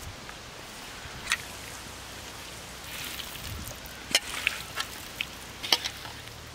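Hands mixing marinated fish chunks with corn flour in a steel bowl: soft wet squishing with a few sharp clicks and taps, mostly in the second half, the loudest about four and six seconds in, over a steady background hiss.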